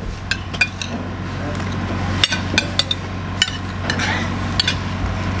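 Spoons and forks clinking and scraping against ceramic plates of rice as several people eat quickly, many separate sharp clinks at an uneven pace, over a steady low hum.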